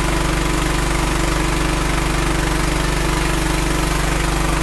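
Pressure washer running steadily: a small engine's constant drone under the hiss of the high-pressure water jet blasting a concrete floor.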